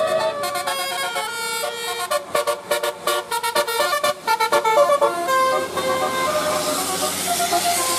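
Basuri 'telolet' multi-trumpet bus horns playing a tune of stepped notes, with a fast run of short stuttering notes in the middle. From about five and a half seconds in, a hiss rises under the notes.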